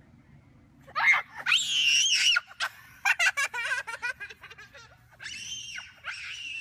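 A young child's high-pitched shrieks, about a second in and again near the end, with a run of laughter in between: a frightened, excited shriek at a lizard held out toward him.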